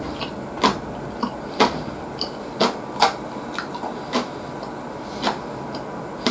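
Close-miked eating: sharp wet mouth smacks and clicks while chewing food, coming unevenly about once or twice a second over a steady background hiss.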